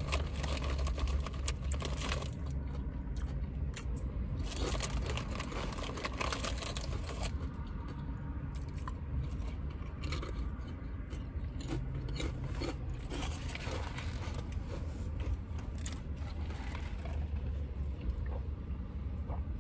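A person chewing and crunching food close to the microphone, with irregular crackly bites, over a steady low hum.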